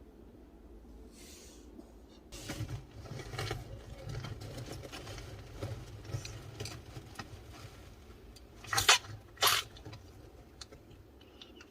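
An Eastern Hermann's tortoise sneezing twice in quick succession, two short sharp puffs of breath. Before them come faint scattered clicks and rustles.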